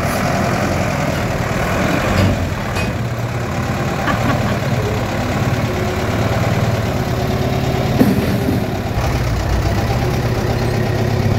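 Diesel engine of a Mercedes-Benz LO 814 minibus idling steadily, with a single short knock about eight seconds in.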